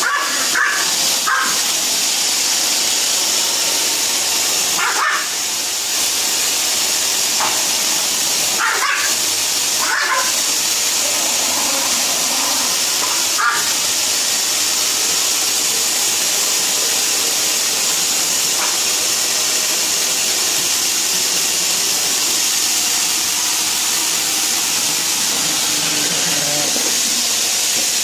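A vacuum cleaner running with a steady hiss while a dog barks at it in short barks, several close together in the first half, then mostly just the vacuum.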